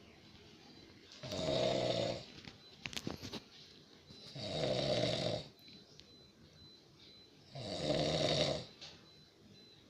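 A person snoring, three long snores about three seconds apart. There is a brief patter of clicks between the first and second snore.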